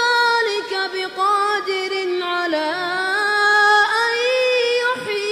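A single high-pitched voice chanting unaccompanied, melodic and drawn out, holding long notes that bend and turn in ornaments.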